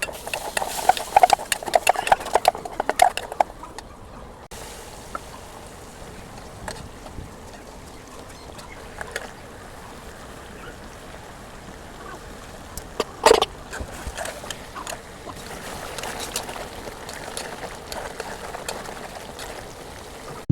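Chicken roast cooking in a pan: sizzling and bubbling, with clicks and scrapes of a utensil, busiest in the first few seconds and with one sharper clack about thirteen seconds in.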